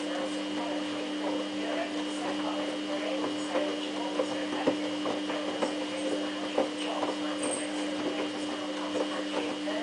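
Samsung WF8804RPA front-loading washing machine turning its drum in the prewash of a denim cycle: a steady motor hum, with the wet load tumbling in irregular knocks.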